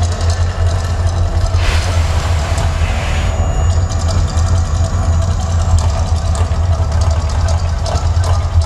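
Deep, steady rumble from the Mirage volcano show's eruption sound effects, with rushing swells of noise about two and three seconds in.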